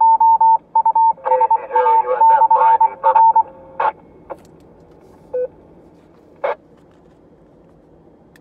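Beeping tone from a two-meter repeater over the car's mobile ham radio speaker: one steady pitch broken into on-off pieces for about three and a half seconds, with garbled sound under it, then a few sharp clicks and one short beep as the channel falls quiet.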